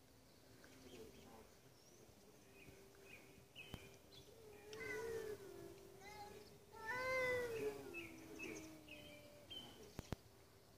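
A domestic cat meowing twice, two long drawn-out calls about five and seven seconds in.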